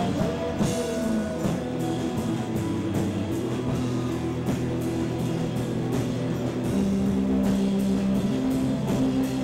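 A live band playing rock music, with guitar and drums.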